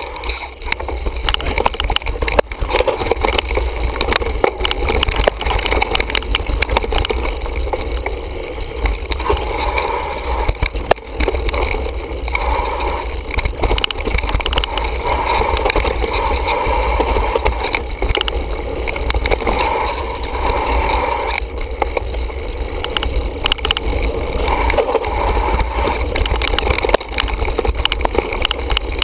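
Mountain bike riding fast along a leaf-covered dirt singletrack, heard from a camera mounted on its handlebar: a steady rumble of wind on the microphone and tyres on the dirt, with frequent knocks and rattles as the bike goes over bumps.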